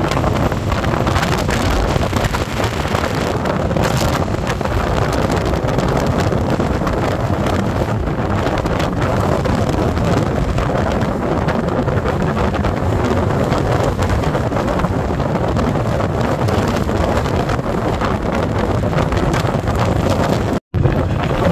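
Steady, loud wind noise on the microphone of a camera riding on a moving motorcycle, over the bike's engine and road noise. The sound cuts out for an instant near the end.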